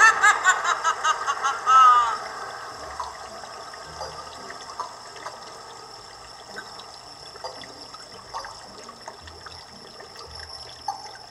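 Sound file playing from a DFPlayer Mini MP3 module through a small breadboard speaker. Quick repeated chirps in the first two seconds give way to a fainter, steady water-like trickle with the odd small click.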